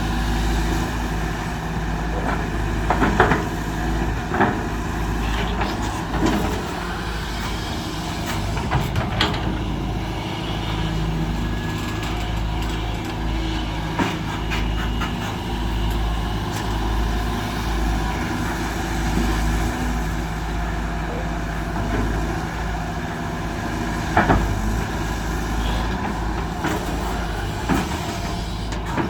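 Heavy diesel engines of an excavator at work loading a dump truck, running steadily, with several sharp knocks and clunks, the loudest about three seconds in and again near the end.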